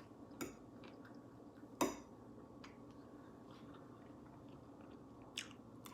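A few sharp clinks of cutlery against a plate while eating: three of them, the loudest just under two seconds in, over a faint steady hum.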